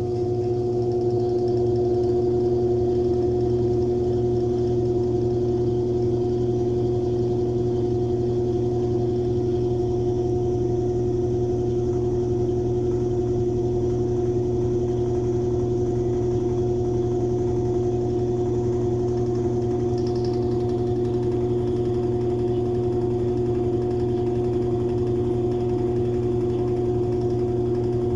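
Mabe washing machine spinning its drum at 700 rpm: a steady motor whine over a low drum hum, building slightly in the first couple of seconds and then holding even.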